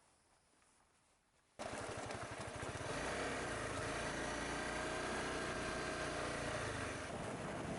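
Honda CBR250R motorcycle engine cutting in abruptly about a second and a half in, rising in pitch as it speeds up, then running steadily.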